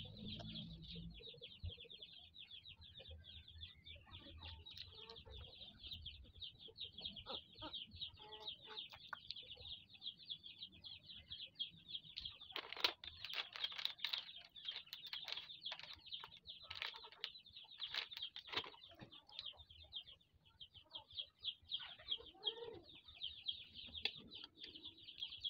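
A plastic spoon clinks and scrapes in a bowl of spaghetti in scattered bursts, thickest around the middle. Under it a steady, fast, high-pitched chirring runs without a break.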